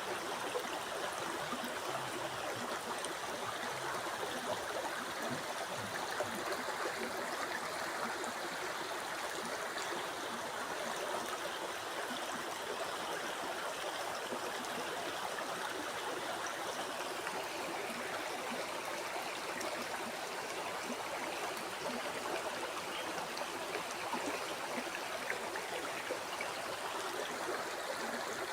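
River water flowing steadily over stones, a continuous rushing and babbling with fine trickling detail.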